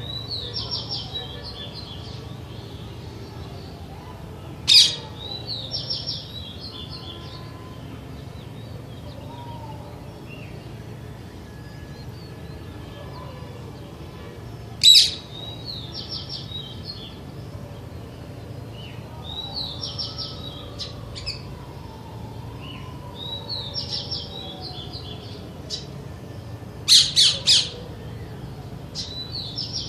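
Parakeets calling: short runs of rapid, high chattering every few seconds, broken by loud harsh single screeches about 5 and 15 seconds in and a quick run of three near the end.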